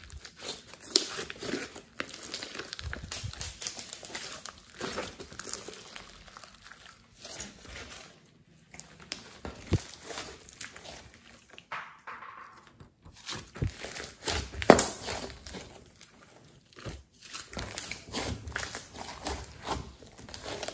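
Hands squeezing, folding and stretching a big mass of glossy slime with clay mixed in, giving dense, irregular sticky clicks and pops with brief pauses.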